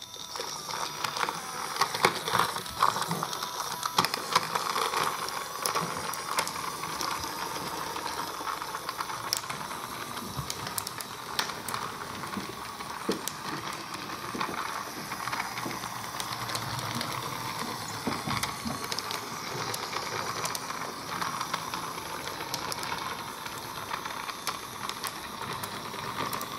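Toy fire engine driving inside a loop of flexible linked plastic track, its small motor running while the track segments click and clatter steadily as the loop rolls round it like a caterpillar tread.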